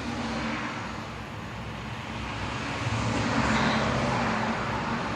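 A motor vehicle's engine hum with road noise, getting louder a little past halfway.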